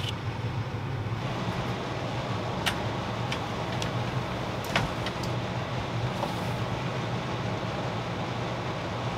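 A steady low hum with an even rushing noise, and a few light clicks and knocks as a stainless steel mug is handled and a camp chair is sat in, the loudest a little before five seconds in.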